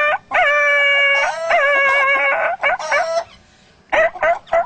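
A man's vocal imitation of a dog yelping in pain after being hit with a stick: two long, high wailing cries of about a second each, then shorter yelps, with a few short choppy sounds near the end.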